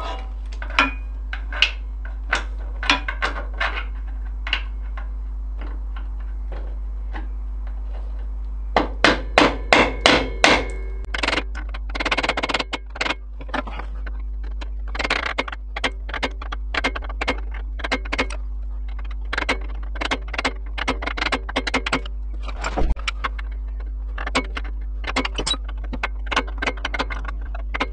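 Hammer blows through a socket driving a ball bearing into its tight seat in a quad's gearbox housing: irregular taps, with quicker runs of blows about a third of the way in and again past the middle. The bearing is a tight press fit that will not go in by hand.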